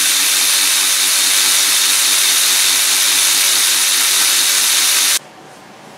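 Avid Power 12V 3/8-inch cordless ratchet wrench (ACRW106) running free with no load, at about 294 RPM, with a steady motor-and-gear whine. It cuts off suddenly about five seconds in.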